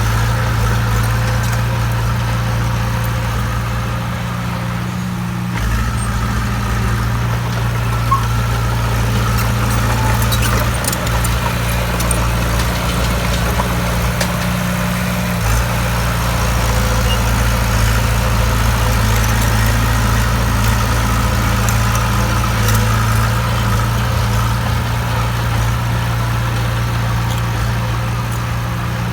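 Bulldozer's diesel engine running steadily, its note shifting slightly about five seconds in and again about fifteen seconds in.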